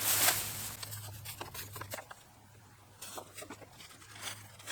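Objects being handled and rummaged through: a loud rustle at the start, then scattered light clicks and crinkles.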